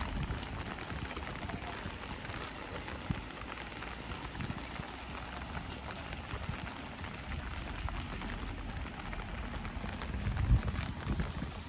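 Steady rain falling on the ground and surroundings, an even hiss throughout. A low thump sounds near the end.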